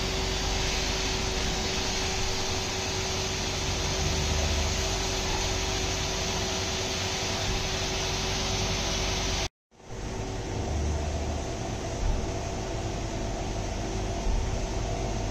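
DIY epoxy-granite CNC vertical mill drilling an aluminium block under flood coolant: a steady spindle hum and the hiss of coolant spray. A brief cut about nine and a half seconds in breaks the sound before the same machining noise resumes.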